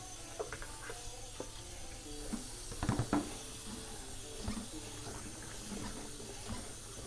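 Water splashing and dripping with scattered light knocks, the loudest cluster about three seconds in, as dried bean curd (tofu skin) is washed by hand in flour-clouded water to rinse the dust out of it.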